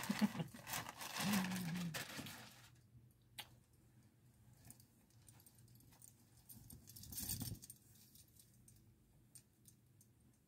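Rustling of plastic packaging and fabric as a hoodie is pulled from a mailer bag and shaken open. The rustling is loudest in the first two or three seconds, with another brief rustle about seven seconds in and a few small clicks.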